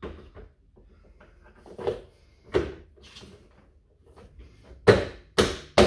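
Plastic interior door panel of a Toyota GR Supra being snapped back onto the door by hand: a couple of softer knocks, then three sharp, loud hits close together near the end as the panel's clips pop into the door.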